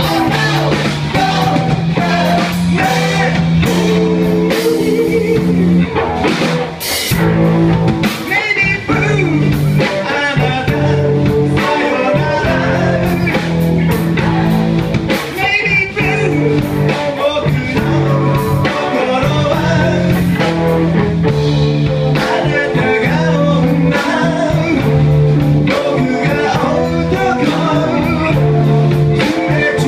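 A live rock band playing a blues-rock song: electric guitars, bass guitar and drum kit, with a lead singer.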